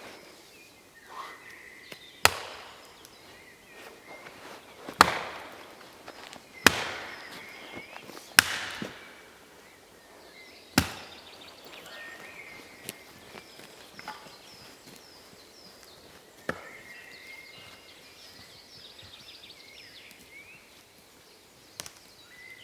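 Wood being chopped with an axe: five sharp strikes about two seconds apart, then a few fainter knocks.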